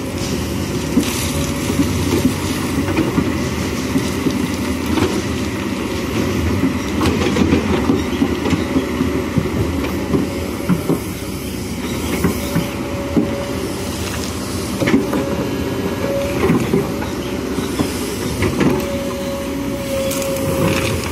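Kobelco SK210HD hydraulic excavator working: its diesel engine runs steadily under a steady high whine, while stones and gravel knock and clatter irregularly as the bucket digs and dumps.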